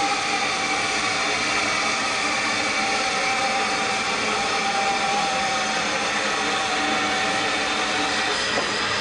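Narrow-gauge saddle-tank steam locomotive with steam escaping: a loud, steady hiss with a ringing tone in it and no exhaust beats.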